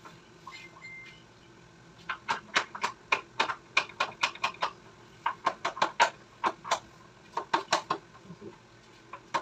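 Hammer driving nails into PVC wall panelling: a run of quick, sharp strikes at about four a second, starting about two seconds in, with a short break midway, and stopping about eight seconds in.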